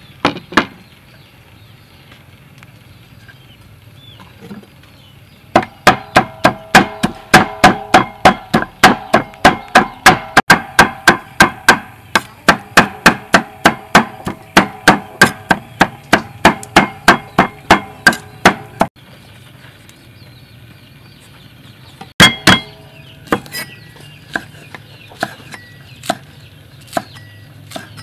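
Steel cleaver chopping dried shrimp on a thick wooden chopping board: a fast, even run of sharp knocks about three a second for some thirteen seconds, the blade ringing under each stroke. After a pause come two heavy knocks, then slower single chops about once a second.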